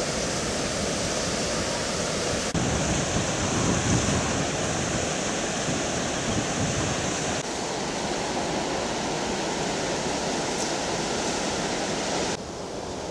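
Steady rushing of white water pouring over rocks, with no pitch or rhythm. Its tone changes abruptly about two and a half and seven and a half seconds in, where the picture cuts.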